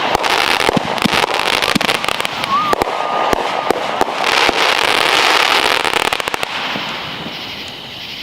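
Consumer fireworks going off: a rapid run of sharp pops and crackling with loud hissing bursts, dying down after about six and a half seconds.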